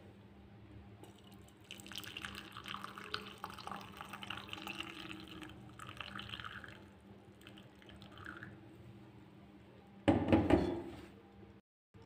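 Hot turmeric milk poured through a steel mesh tea strainer into a glass, splashing and trickling for several seconds and then thinning out. About ten seconds in, a brief loud clatter.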